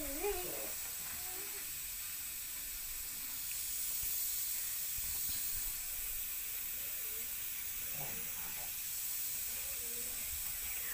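Egg-curry masala gravy simmering in a kadai, bubbling with a steady hiss and sizzle.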